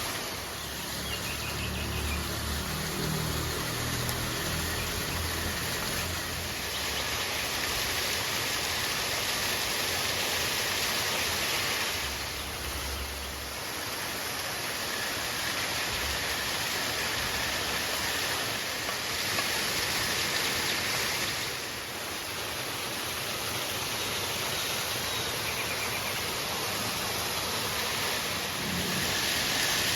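River water rushing steadily, its level shifting a few times along the way, with some low rumble in the first few seconds.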